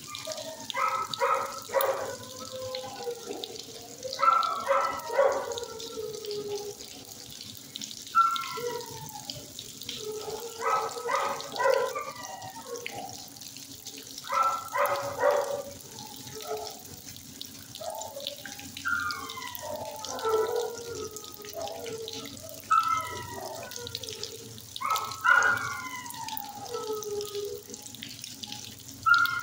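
Shelter dogs barking in quick runs of three or four and howling, the howls falling in pitch, again and again, over a steady hiss.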